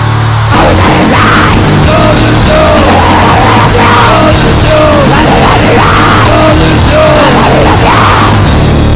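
Powerviolence hardcore punk song: loud distorted guitars, bass and drums with yelled vocals in repeated short phrases.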